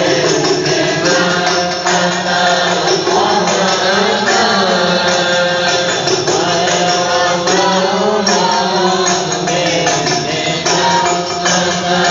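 A crowd of men chanting devotional Arabic verses in praise of the Prophet (shalawat) together in unison, with frame drums beating along.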